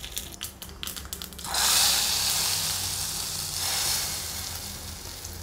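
Mustard seeds and urad dal crackling in hot coconut oil in a small tempering pan. About a second and a half in, a sudden loud sizzle as the hot tempering is poured into the cucumber and moong dal kootu, slowly dying away over the next two seconds.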